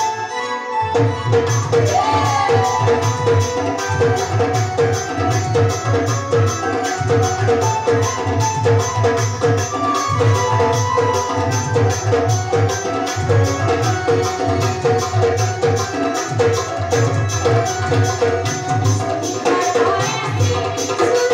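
Live Indian folk music: a hand drum keeps a fast, steady beat over held drone notes, resuming after a brief break at the very start. Near the end a woman's singing voice comes in over the drumming.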